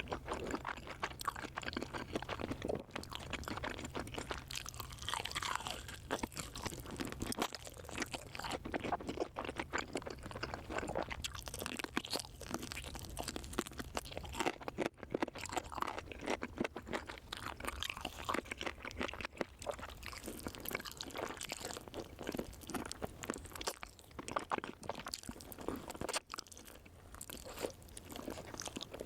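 A person chewing and biting crunchy food up close: a dense, irregular run of crisp crunches with no pause.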